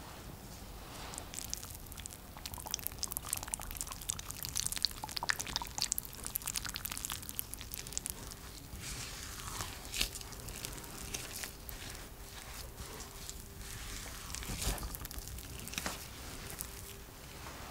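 Silicone spatula stirring flour with oil and milk in a glass bowl: crackly scraping and rustling of the flour as it clumps into a shaggy dough, with a couple of sharper knocks against the bowl.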